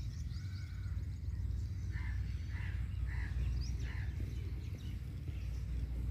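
Outdoor ambience: a steady low rumble with small birds chirping faintly, and a short call repeated about five times a little past the middle.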